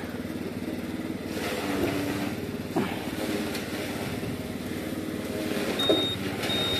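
Honda automatic scooter engine running as it moves off and rides slowly along a dirt track, a few small knocks from the bumpy ground, and two short high beeps near the end.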